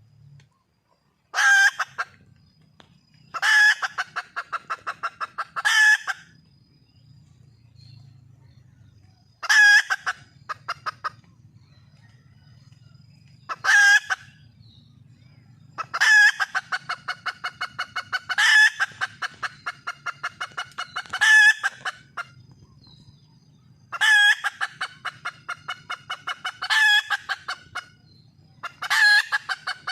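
Junglefowl hen calling to attract a male: bouts that start with a loud note and run on into a fast string of short clucks, repeated every few seconds.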